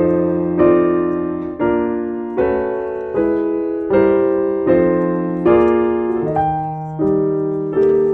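Background piano music: soft chords struck about every 0.8 s, each ringing and fading before the next.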